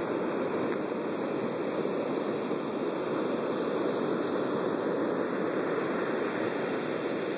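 Big storm-surge waves breaking and washing up a sandy beach: a steady rush of surf that does not let up.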